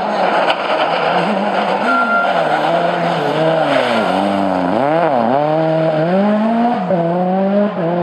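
Ford Fiesta RRC rally car's turbocharged 1.6-litre four-cylinder engine passing close at speed. The engine note drops as it slows for the bend, dips and jumps quickly in the middle, then climbs again as it accelerates away, with one short drop for a gear change near the end.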